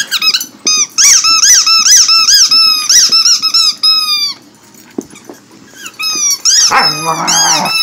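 Squeaky rubber toy ball squeezed over and over, about three squeaks a second, each squeak rising and falling in pitch. A pause comes about halfway through, then more squeaks with a rougher, buzzier stretch near the end.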